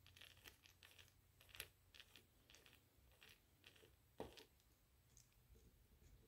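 Faint, irregular small clicks and ticks of a precision Torx screwdriver bit turning a tiny screw in a hard drive's circuit board, with a louder click about a second and a half in and another about four seconds in.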